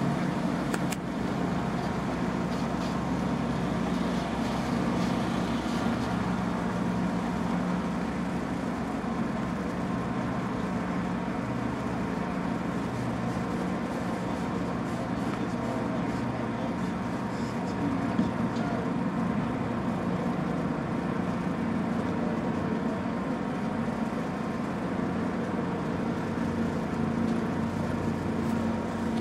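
Steady motor-vehicle engine and road noise: a constant low drone that holds the same level throughout.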